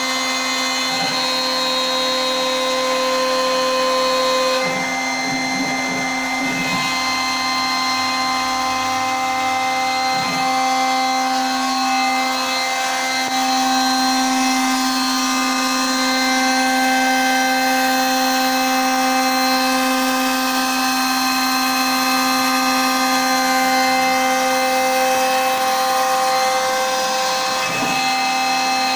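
CNC router cutting MDF: the spindle runs steadily with a whine made of several steady tones, and the mix of tones shifts a few times, about 5 and 10 seconds in and again near the end, as the cut goes on.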